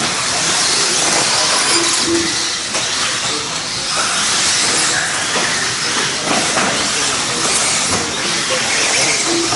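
Several electric RC off-road buggies racing around the track together: a steady, loud hiss of motors, drivetrains and tyres.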